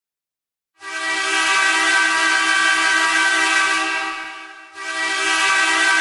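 Bakersfield Condors goal horn: a loud, steady air-horn blast starting about a second in, then a second blast that starts just before five seconds and keeps going.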